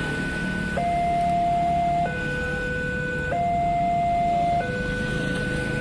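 Railway level-crossing warning alarm sounding from the horn loudspeaker on the signal post. It is an electronic two-tone signal alternating high and low, each tone held for a little over a second, warning that a train is coming while the barriers are down. A steady low rumble lies beneath it.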